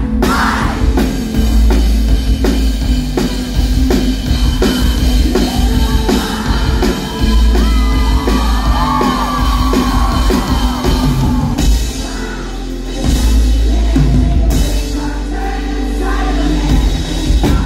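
A live pop-rock band playing loud, with a steady drum beat and heavy bass. Crowd voices sing along and shout over it.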